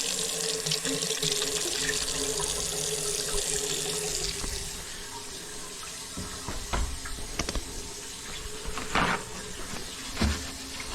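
Water running from a newly installed sink faucet into the basin during a leak test, a steady hiss that eases a little about four seconds in, with a few light knocks later on.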